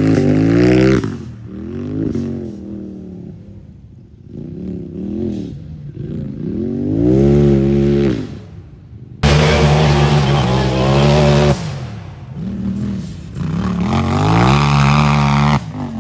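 Race UTV engine revving hard, its pitch repeatedly rising and falling as the throttle is worked on and off during a hill run. About nine seconds in the sound jumps suddenly louder.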